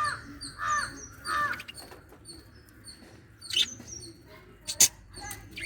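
Lovebirds chirping: three short arched calls in the first second and a half over many quick, high chirps, with a few sharp clicks later on.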